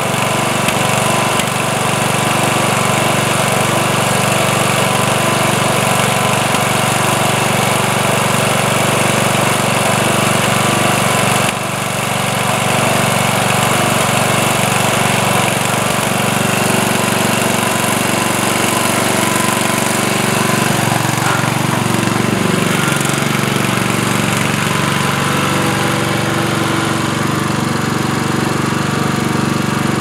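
Craftsman LT1000 riding lawn tractor's engine running steadily, with its pitch rising and falling for a few seconds about two-thirds of the way through as the tractor is driven off a utility trailer.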